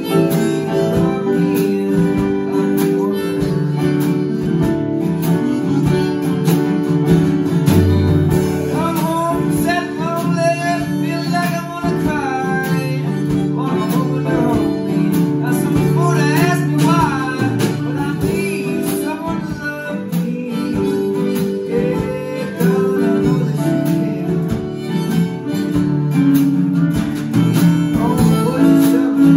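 Live band jam: harmonica playing lead over a strummed acoustic guitar, keyboard and drum kit. The harmonica line has wavering, bending notes through the middle stretch.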